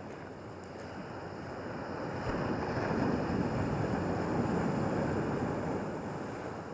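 Sea waves breaking on the beach: a wave surges in about two seconds in, peaks, then draws back and fades near the end.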